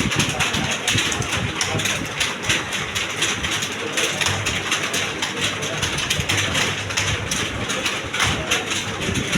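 Many computer keyboards being typed on at once: a dense, unbroken clatter of overlapping keystrokes.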